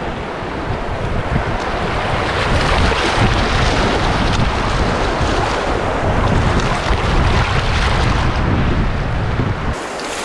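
Rushing whitewater of a river rapid, with wind buffeting the microphone in a low rumble that drops away suddenly near the end.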